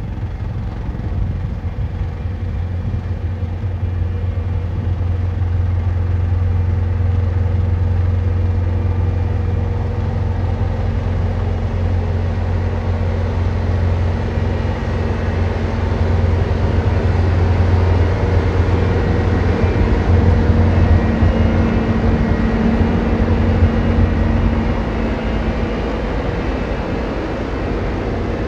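Tractor engine running steadily under load, loud and close, a deep hum with steady tones above it. It cuts in abruptly and grows a little louder midway before easing again.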